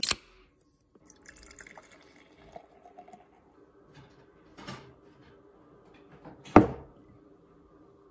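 A beer can's pull tab is cracked open with a sharp snap, followed by faint sounds of beer pouring and fizzing. A loud knock comes about six and a half seconds in, fitting a metal tankard being set down on a wooden table.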